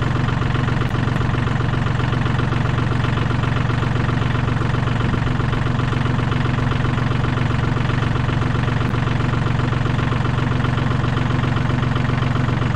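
Compact tractor's diesel engine running at a steady, even speed, heard close up from the operator's seat beside the upright exhaust stack.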